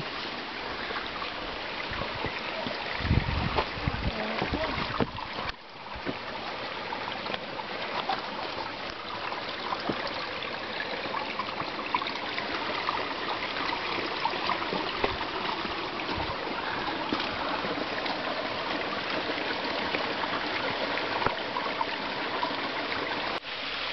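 Stream water running with a steady rush, with a few low bumps on the microphone about three seconds in and a brief dropout a couple of seconds later.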